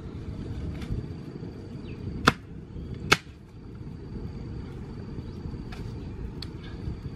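Two sharp knocks about a second apart, with a few fainter clicks, over a steady low rumble and a thin, steady high tone.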